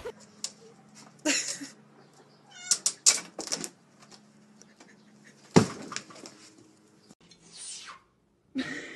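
A domestic cat meowing a few times in short calls, with a sharp knock a little past halfway.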